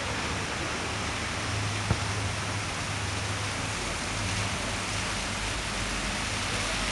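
Steady hiss of falling water on wet paving, with one brief knock about two seconds in.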